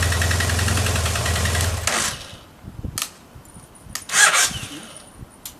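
BMW F800ST's parallel-twin engine idling steadily, then switched off about two seconds in. Afterwards there are two sharp clicks and a short, loud rustling scrape.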